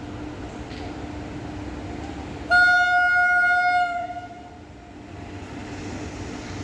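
Horn of an arriving Indian Railways express locomotive: one loud, single-pitched blast about two and a half seconds in, lasting about a second and a half, over the steady rumble and hum of the approaching train.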